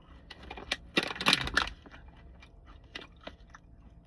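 Crunchy snack being chewed close to the microphone, with a burst of loud crackly crunches from about one second in.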